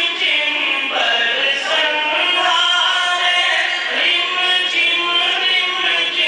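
A man chanting an Urdu naat, a devotional poem in praise of the Prophet, into a microphone in a continuous melodic line without pauses.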